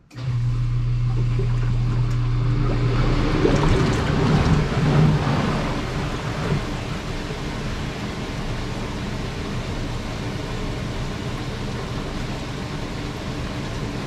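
Whirlpool bathtub's jet motor switching on with a steady hum, then its jets churning and bubbling the full tub of water. The churning builds and is loudest a few seconds in, then settles into a steady wash.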